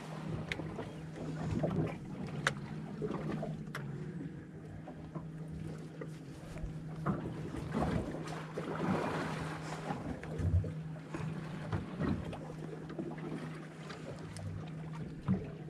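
A boat's steady low hum with water lapping against the hull, and scattered sharp clicks and knocks as an angler reels in a fish.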